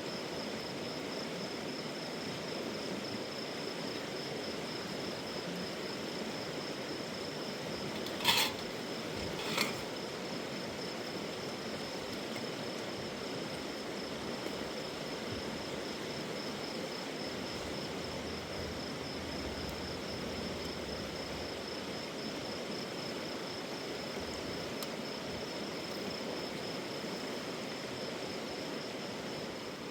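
Steady rushing of river water, with a thin steady high tone over it and two sharp clicks about a second apart, around eight and nine and a half seconds in.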